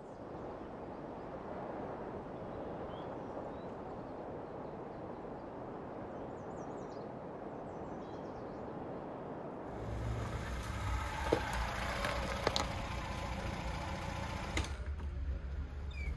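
A steady rushing noise with a few faint bird chirps for the first ten seconds or so. Then a classic Lada saloon's engine idling with a low steady hum, with a few sharp clicks over it.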